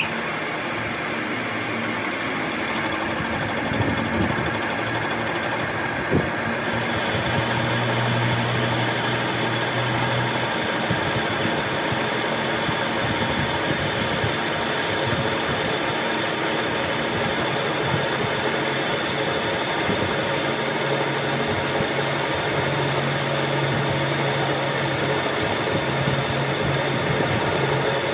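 Workshop machine motor running steadily, with a shift in its tone about six and a half seconds in.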